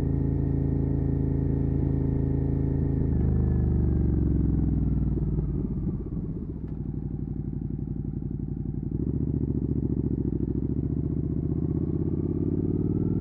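Suzuki SV650's V-twin through a Dominator exhaust, running steadily, then the revs falling away from about three seconds in to a low, pulsing beat. The revs climb again near the end.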